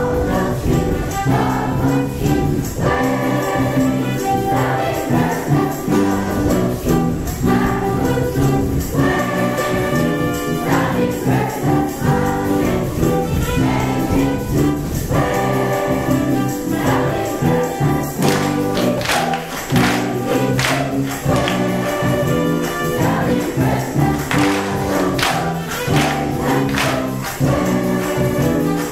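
Large children's choir singing a jazz song over a musical accompaniment, with sharp percussive hits about two-thirds of the way through.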